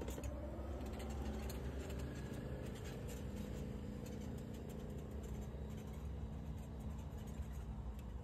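Golf cart driving away across the grass, its motor giving a whine that glides in pitch over the first few seconds and then fades, over a steady low rumble.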